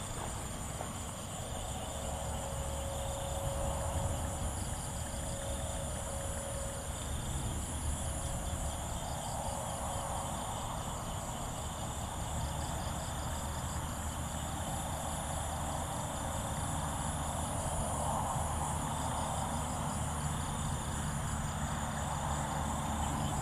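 Night insect chorus: crickets trilling steadily in several high pitches, with a low rumble underneath.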